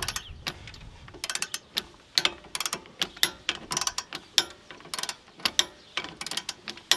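Socket ratchet clicking in quick bursts as its handle is swung back and forth, turning the forcing screw of a C-frame ball joint press that slowly pushes an upper ball joint into a steering knuckle.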